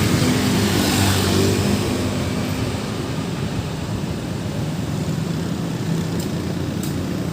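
Road traffic: a large vehicle's engine passes close, loudest at the start and fading over the first two seconds, leaving a steady rumble of traffic.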